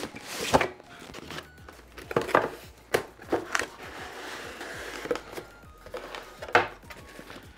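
A cardboard graphics-card retail box being opened and its packaging handled: scattered taps and scrapes of cardboard with crinkling of packaging material.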